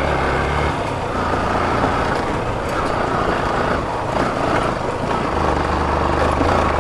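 Yamaha FZ motorcycle engine running steadily while riding, with wind and road noise.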